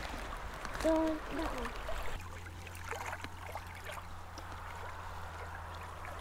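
Loch water lapping and gurgling gently at a stony shoreline, with faint small splashes and ticks. A child's brief vocal sound about a second in.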